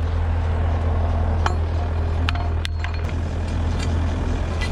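A truck engine idling steadily, a constant low hum, with several sharp knocks and clicks from hand tools on concrete scattered through it.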